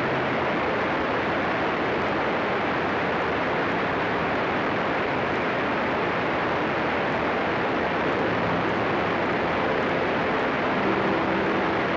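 Light aircraft engine and propeller running steadily, heard from aboard an aircraft in flight, under a constant rush of wind noise; a low engine hum grows a little stronger near the end.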